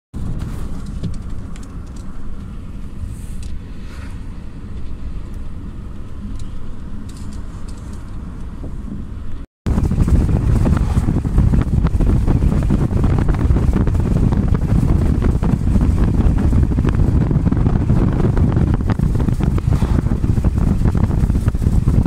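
Road noise of a moving car heard from inside the cabin: a steady low rumble of tyres and engine. About ten seconds in it drops out for a moment, then comes back louder, with more wind rush.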